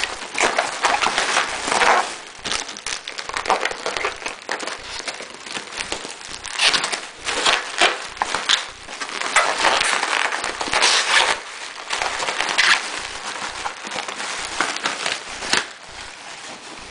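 Packing material around a hard drive crinkling and crackling in irregular bursts as it is handled and unwrapped by hand.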